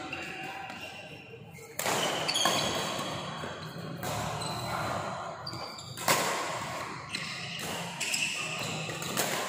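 Badminton rackets striking a shuttlecock in a rally, a sharp hit about every two seconds, each one echoing in a large hall.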